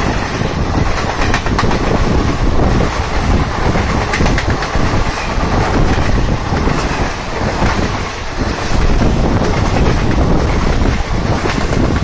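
Indian Railways passenger coaches of an express train rolling past close by, their wheels clattering over the rail joints in a dense, continuous clickety-clack.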